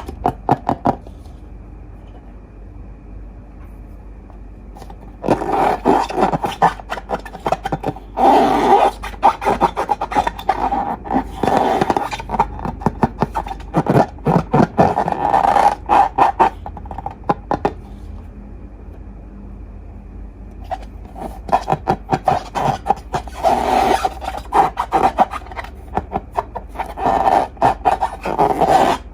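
Slime being squished and worked by hand, with dense sticky crackling and clicking in bouts, broken by two quieter stretches of soft rubbing.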